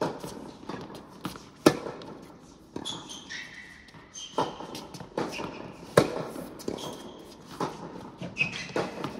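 Tennis rally on an indoor hard court: sharp pops of racket strings striking the ball and the ball bouncing, about one every one and a half seconds, echoing in the hall, with short high shoe squeaks on the court surface between shots.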